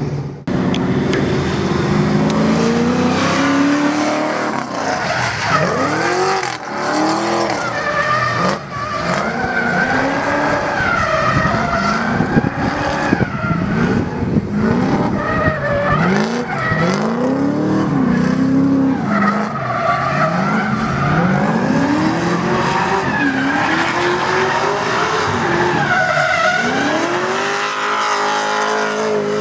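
Drift car engine revving up and dropping again in repeated swells, with tyres squealing and skidding through the slides. Near the end the engine holds at high revs.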